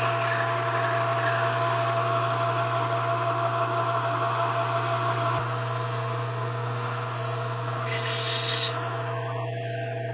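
Metal lathe running steadily while a carbide insert tool cuts a spinning brass bar, throwing chips: a continuous scraping cutting noise over the steady hum of the machine.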